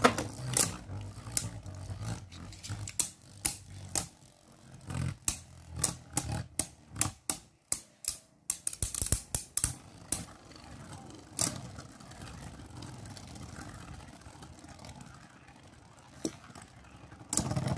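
Two plastic Beyblade spinning tops, Perfect Phoenix and Glide Ragnaruk, battling in a plastic stadium. For about ten seconds they clack together in quick, irregular sharp hits, then settle into a quieter, steady spinning noise.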